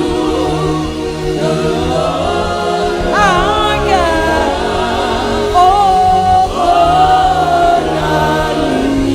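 Live gospel worship music: singers over a steady keyboard and bass accompaniment, with one voice bending through a phrase with vibrato about three seconds in and then holding long notes.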